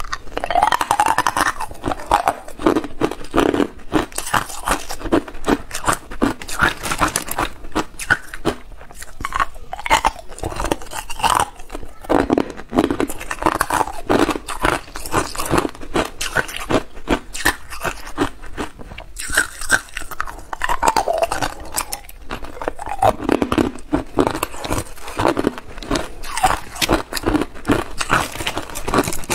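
Hard clear ice cubes being bitten and chewed, a continuous run of sharp crunching cracks.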